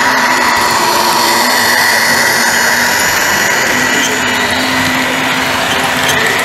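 A model train running on an OO gauge DCC layout, giving a steady mechanical whine with a higher tone that rises slightly near the end.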